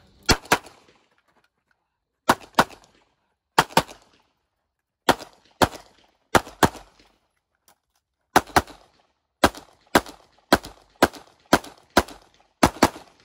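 Pistol shots fired mostly in quick pairs (double taps), about twenty in all, with gaps of one to two seconds between pairs and the pace quickening toward the end.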